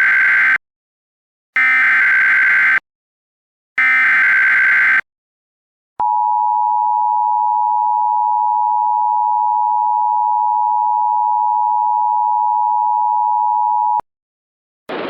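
Emergency Alert System tones announcing a tornado warning. First come three bursts of SAME header data, each about a second long with about a second's pause between them. Then the two-tone EAS attention signal sounds steadily for about eight seconds and cuts off suddenly.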